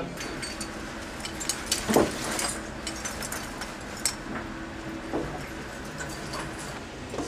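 Rustling fabric and scattered clinks and clicks of a pilot's flight gear being put on: G-suit and a harness vest with metal buckles and fittings. There is a louder knock about two seconds in, over a faint low steady hum.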